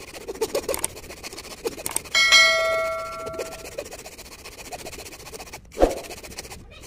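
A bright bell-like ding about two seconds in, ringing out for about a second and a half: the chime of a subscribe-button animation. Under it, light scraping strokes of a hacksaw blade rounding the inside of a wooden hand plane's throat, and one knock near the end.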